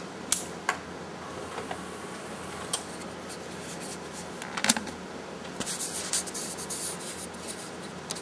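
Handling noises: a few sharp clicks and taps, a quick cluster of knocks near the middle, then a second or so of scraping rustle.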